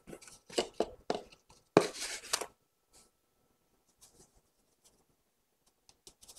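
Scoop scraping through granulated sugar in a plastic tub and sugar pouring into a stainless-steel mixing bowl: a run of short scratchy rustles, a louder hiss of pouring sugar about two seconds in, then only faint light clicks.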